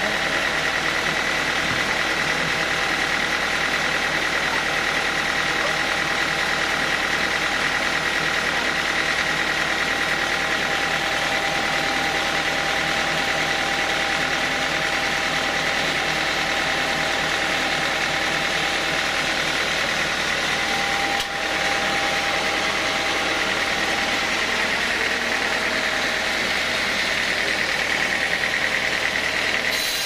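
Band sawmill running unloaded, its blade and drive running steadily with a constant high whine over a machine hum. The level dips briefly a little past two-thirds of the way through.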